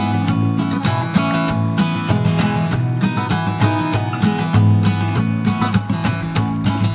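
Instrumental background music led by acoustic guitar, with many notes in quick succession.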